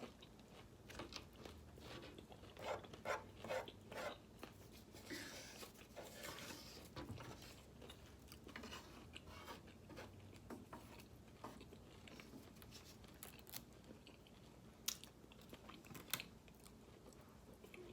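Faint, close-up eating sounds: someone biting and chewing fried chicken, with scattered wet mouth clicks and crunches and a longer crunchy stretch about five seconds in.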